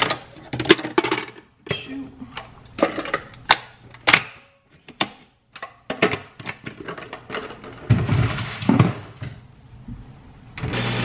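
Clicks, clinks and knocks of a capsule coffee machine and a plastic-lidded capsule canister being handled, with a couple of duller thuds. Near the end the Nespresso machine starts brewing with a steady mechanical whirring hum.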